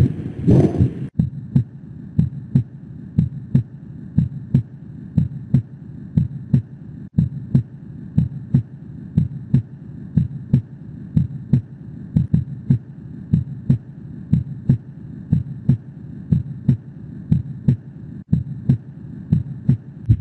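Recorded heart sounds heard through a stethoscope: a steady, regular lub-dub rhythm of low thuds over a faint hiss. About a second in, a brighter recording gives way to this one.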